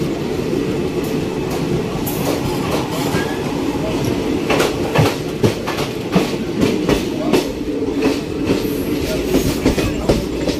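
Train running in an ICF sleeper coach: a steady rumble of the running gear, with the wheels clattering over rail joints and points in sharp, irregular clacks from about four and a half seconds in, as the train pulls out of the station.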